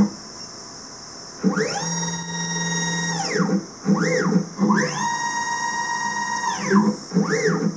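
Gecko G540-driven stepper motors of a Dyna 3000 CNC lathe jogging the tool carriage: a whine that rises in pitch as the axis speeds up, holds steady, then falls as it slows down. Two long moves, each followed by a short quick move.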